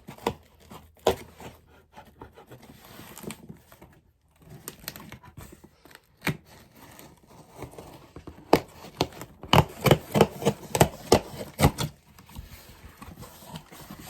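A package being opened and handled: tearing, scraping and crinkling of packaging, with scattered clicks. In the second half comes a quick run of about a dozen sharp knocks and taps.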